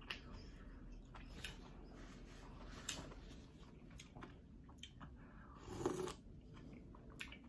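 Faint eating sounds of green-lipped mussels: a few light clicks as a mussel shell scoops through the food, then a louder slurp about six seconds in as a mussel is eaten from its shell.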